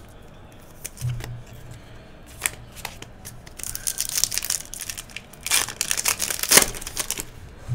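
Baseball card pack wrapper crinkling and tearing open, with cards being handled. A few light clicks come first, then crinkling in bursts around the middle and again in the second half.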